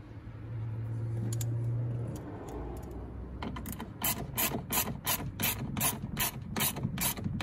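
Hand ratchet clicking at about three clicks a second as its handle is swung back and forth, running a door-mirror mounting bolt into plastic. The clicks start about three and a half seconds in, after a brief low hum.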